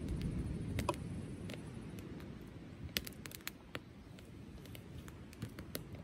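Wood fire crackling in a Solo Stove Campfire stove: irregular sharp pops and snaps, a quick cluster of them about halfway through, over a low rumble that dies away over the first two seconds.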